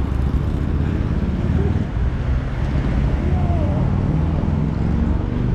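Steady low rumble, with faint voices in the background.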